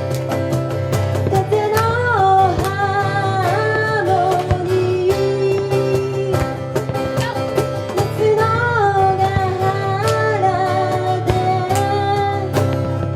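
Live acoustic pop music: guitar strumming under a melody line that holds and glides between notes.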